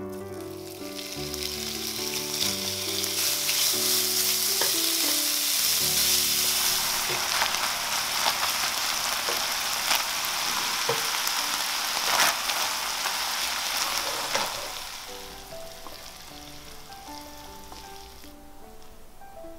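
Seasoned ground beef sizzling in hot oil in a frying pan as it is stir-fried with a spatula, with a few sharp clicks of the spatula against the pan. The sizzle dies down about three-quarters of the way through.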